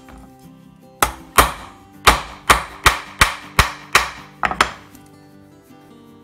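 A hammer striking the protruding ends of small screws resting on an iron support: about ten sharp metallic blows in quick succession, starting a second in and stopping near the three-quarter mark. The blows peen the screw tips over into rivet-like heads.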